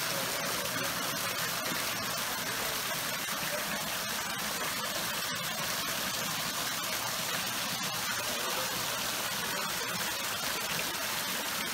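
Thin streams of water falling like a curtain and splashing: a steady rushing, splattering noise.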